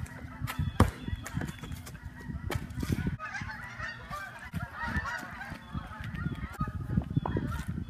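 A flock of geese honking, many overlapping calls that thicken into a steady chorus from about three seconds in. Before that, running footsteps on gravel and a couple of sharp knocks.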